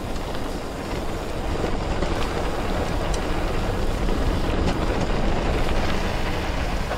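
Mountain bike ridden over a rough dirt track: a steady rumble of tyres and wind with scattered clicks and rattles, growing a little louder midway.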